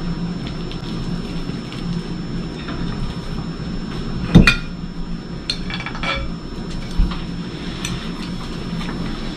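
Knife and fork clinking and scraping on a ceramic dinner plate, with one sharp clink about four seconds in. A second plate is set down on the wooden table a couple of seconds later, giving a ringing clink and a short thud, over a steady low hum.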